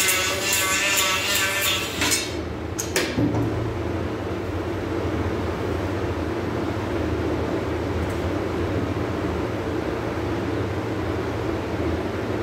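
Handheld power grinder carving the wooden rim of a bowl, its pitch wavering under load, then stopping about two seconds in. A couple of knocks follow as the tool is put down and the bowl is shifted, and after that a steady low machine hum continues.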